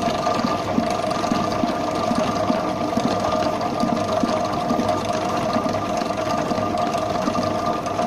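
Electric mixer running steadily, its beater whipping butter cream icing in a steel bowl: a constant motor whine over a fast, even churning.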